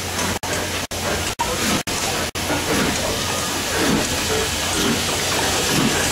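Steam locomotive drifting slowly past close by with a steady hiss of steam, and voices on the platform. The sound cuts out briefly five times, about twice a second, in the first few seconds.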